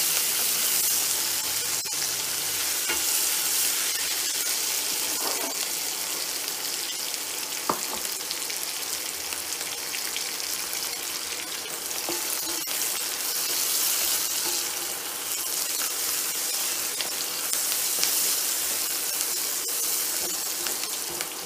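Sliced onions sizzling steadily in a hot cast iron wok as they are stir-fried, with a few sharp knocks of a wooden spatula against the pan.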